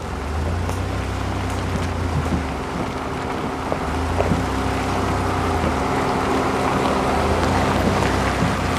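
Jeep Liberty towing a small trailer crawls over a rough, rocky road, its engine running with a low hum that swells and eases, while stones crack and pop under the tyres. It grows louder as it draws close and passes.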